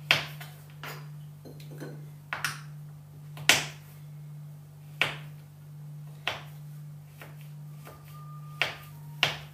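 Kitchen knife chopping chocolate on a wooden cutting board: irregular sharp knocks of the blade hitting the board, about one or two a second, the loudest about three and a half seconds in. A steady low hum sits underneath.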